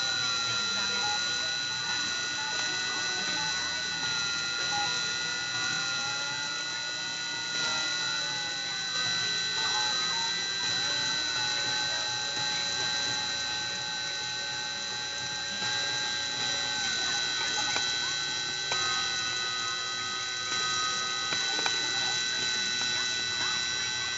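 A Dremel rotary tool on a Cyclone PCB CNC machine, spinning with a steady high whine as it cuts into acrylic. Under it the stepper motors hum, their pitch sweeping up and down and shifting every few seconds as the machine traces the pattern.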